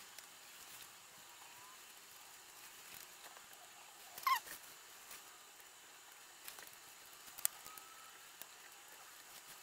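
Quiet soldering work: faint handling clicks and taps of wires and tools on the bench as a drone's motor wires are soldered onto the ESC. One brief high squeak falls in pitch about four seconds in.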